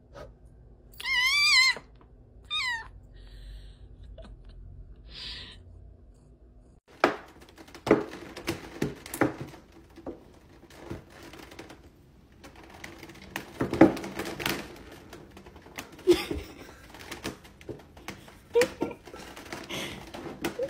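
A tabby cat, blown on to wake her, gives a wavering meow and then a shorter one. After that, a clear plastic cupcake container clicks, crackles and thunks in a long irregular run as a black cat stands and treads on its lid.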